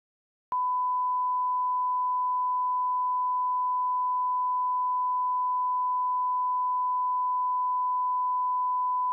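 Bars-and-tone reference tone: a single steady, pure test beep that starts abruptly about half a second in and holds unchanged.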